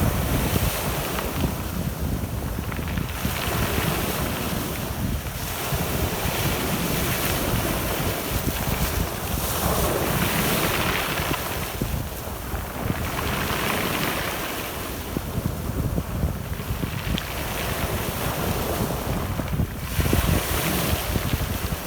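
Sea waves breaking and washing up the shore, the surf swelling and fading every few seconds, with wind rumbling on the microphone.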